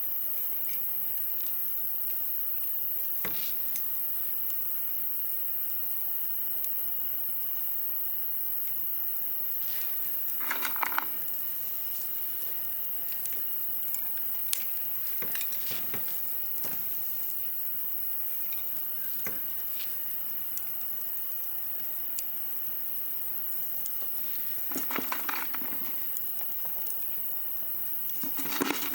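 Wood campfire crackling, with scattered sharp pops and snaps. A few short louder bursts of knocking come about ten seconds in and twice near the end.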